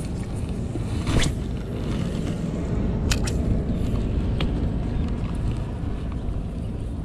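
Small boat's motor running steadily with a low rumble, with a few sharp clicks over it, the loudest about a second in.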